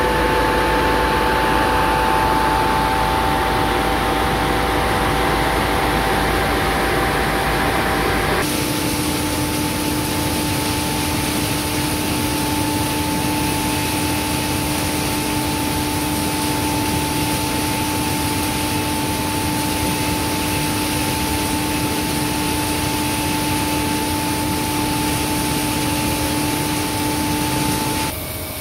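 Wet shell transport fan in a palm oil mill running steadily: a loud industrial blower drone with a hiss of air and several steady tones. The mix changes abruptly about eight seconds in, when the deep rumble drops away and a lower tone comes in.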